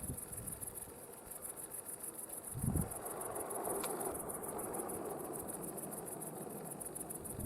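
Crickets chirping in a steady, rapid high-pitched trill, about six pulses a second. A low thud about two and a half seconds in is followed by a broad rumble that carries on to the end.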